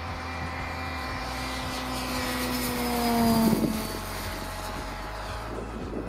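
Electric giant-scale T-28 Trojan RC model flying past, its brushless motor and 20x10 propeller making a steady whine. The whine grows louder to a peak about three and a half seconds in, then drops in pitch and fades as the plane passes.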